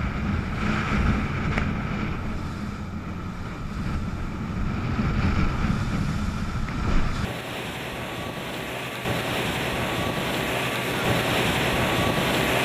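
Rigid-hull inflatable boat running fast over open sea: engine drone and wind buffeting the microphone, with water rushing past the hull. About seven seconds in the sound changes abruptly to a bright, hissing rush of wake and spray with little low rumble.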